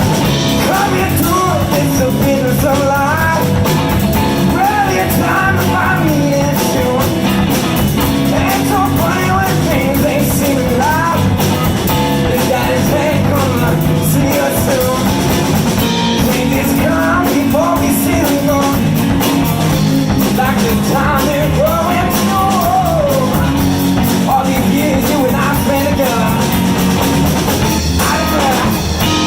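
Blues band playing live: guitar over bass and drum kit, with steady loud music and wavering bent notes.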